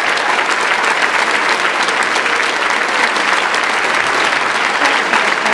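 Audience and choir applauding: a large crowd clapping steadily.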